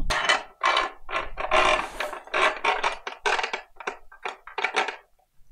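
A hand tool worked in quick, short strokes, about four a second, that stop near the end.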